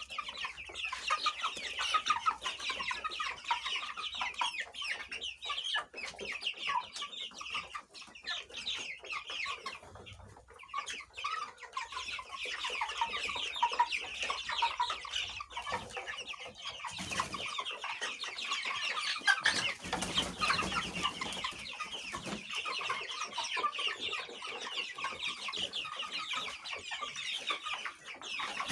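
A flock of five-week-old chickens cheeping and chirping together in a dense, continuous chorus of short high calls, which thins briefly about a third of the way in.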